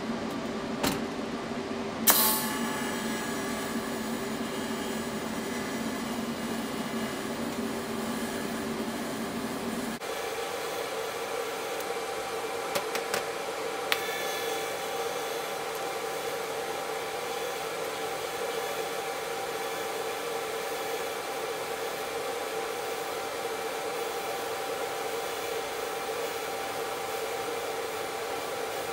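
TIG welding arc on steel: the arc strikes with a sharp crackle about two seconds in, then runs as a steady buzz. Its sound changes about a third of the way through, and a few sharp crackles follow as the tungsten is crashed into the weld puddle.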